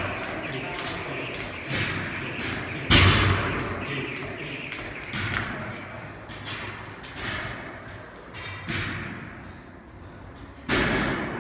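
Irregular heavy thuds of gym equipment striking the floor and walls, several seconds apart and echoing in a large hall. The loudest comes about three seconds in and another near the end.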